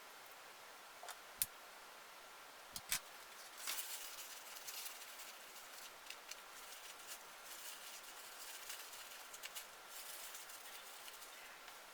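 Small hand-work noises: a few sharp clicks, the loudest about one and a half and three seconds in, then light scraping and rustling that goes on intermittently.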